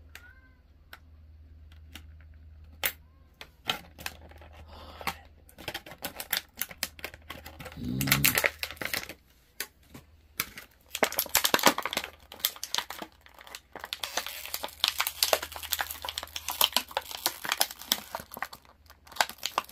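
Plastic packaging crinkling and rustling as it is handled, with scattered sharp clicks and taps. The sound is sparse at first and turns into dense, continuous crinkling from about halfway through.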